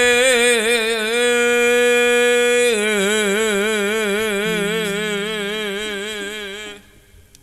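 A solo singer draws out a long sung note with wide vibrato at the end of a Javanese song phrase. The note steps down in pitch about three seconds in and dies away near the end.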